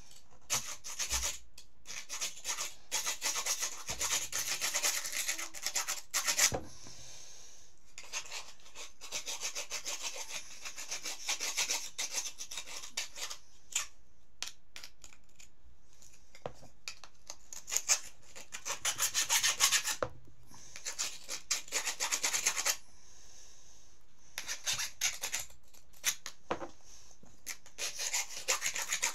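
A metal hand file rasping a piece of cuttlebone in quick back-and-forth strokes, grating it to powder. The filing comes in several runs of a few seconds each, with short pauses between.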